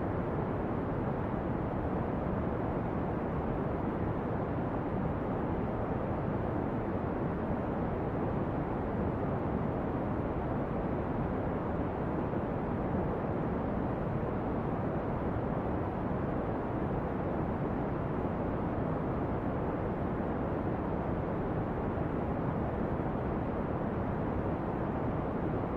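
Brown noise: a steady, even rushing hiss weighted toward the low end, with no change across the whole stretch.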